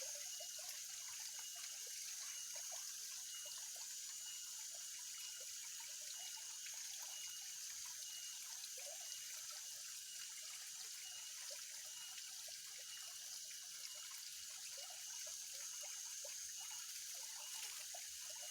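Faint, steady trickle of water at a fish pond, with many small drips and a constant high hiss behind it.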